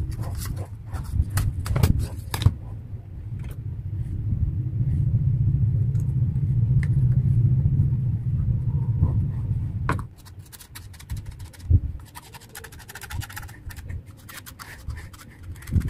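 Hands handling board pieces and a small speaker driver, with scattered clicks and taps over a low rumble that cuts off suddenly about ten seconds in. Near the end a pen scratches in short strokes as it traces the speaker's outline on the board.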